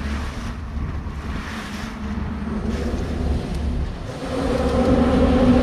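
A boat motor running steadily under way, with wind on the microphone. About four seconds in, a louder engine drone builds and grows to the loudest point near the end.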